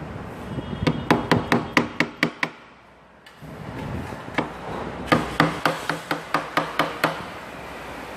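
Hammer tapping in two quick runs of sharp blows, about four a second, with a short pause between them, as a new rear crankshaft oil seal is tapped into place at the flywheel end of the block.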